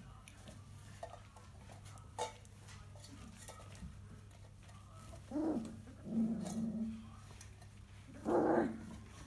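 Airedale Terrier puppies calling out three times during play, with a few light knocks in between, over a steady low hum.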